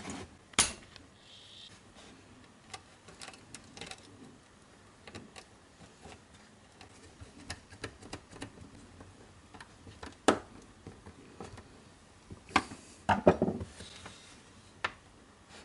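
Small clicks and ticks of a screwdriver working the screws of a power supply's terminal block and of wires being handled, with a few louder knocks of the metal case on a wooden surface: one near the start, one about ten seconds in and a quick cluster about thirteen seconds in.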